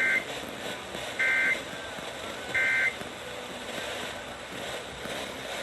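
Emergency Alert System end-of-message data tones: three short bursts of two-tone warbling digital code, each under half a second and about a second apart, marking the end of the alert. Steady background hiss runs under them.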